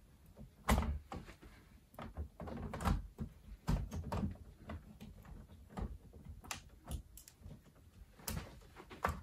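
A 50-amp breaker being clipped into a home electrical panel, with the wiring being handled: a series of scattered plastic-and-metal clicks and knocks.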